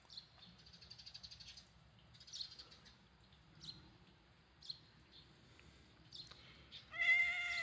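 Faint, high bird chirps here and there, and near the end a short, steady meow from the orange-and-white cat being petted.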